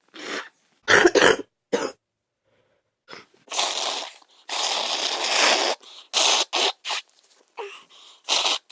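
A woman sick with influenza A coughing a congested cough: a quick cluster of coughs about a second in, then two longer rushing blasts of air, and a string of short sharp bursts near the end.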